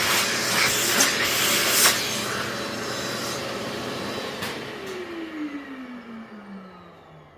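Router running and cutting a mortise in wood, then switched off about four and a half seconds in, its motor whine falling steadily in pitch and fading as the bit spins down.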